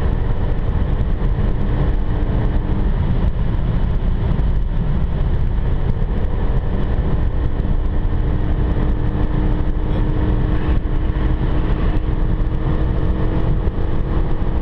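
Renault Mégane RS 265 cruising at motorway speed, heard from inside the cabin: a steady engine drone under loud, even tyre and wind noise.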